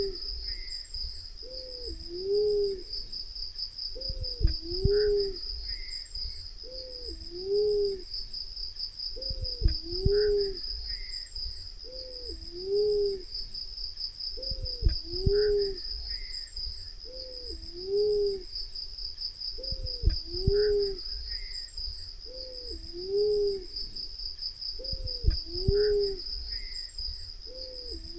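Black-naped fruit dove cooing: low hooting coos in pairs about every two and a half seconds, repeating in an exact loop, with a dull thump about every five seconds. A steady high buzz runs underneath.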